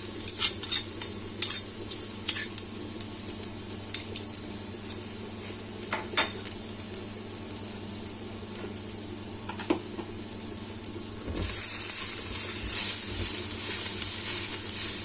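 Chopped garlic sizzling in hot oil in a pan as it is stir-fried, with scattered clicks of the utensil against the pan. The sizzle grows louder about eleven seconds in.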